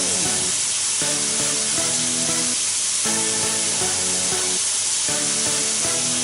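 Scallops sizzling in olive oil in a frying pan, a steady hiss, under background music whose notes change about once a second.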